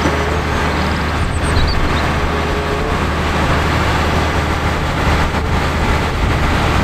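Concrete mixer truck's diesel engine running steadily, a deep, even rumble.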